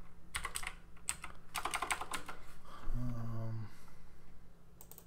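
Computer keyboard keystrokes in quick flurries, as keys and shortcuts are typed in a code editor, then a short low hum about three seconds in.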